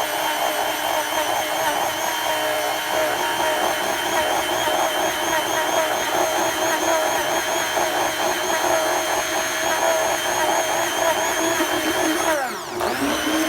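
Electric blender running steadily, blending lemonade and ice cream. Near the end the motor winds down, starts again for a short second run, then winds down once more.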